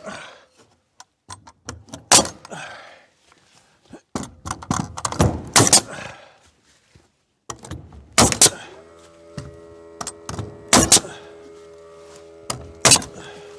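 A series of loud, sharp wooden knocks and thunks from carpentry work on a board-and-batten hutch, about six of them spread out. From about eight and a half seconds in, a steady machine hum starts underneath and keeps going.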